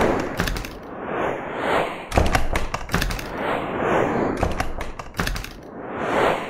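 Swelling whoosh effects, about one every two seconds, with sharp taps and low thuds among them: an edited sound-effect track for animated advertisement cards.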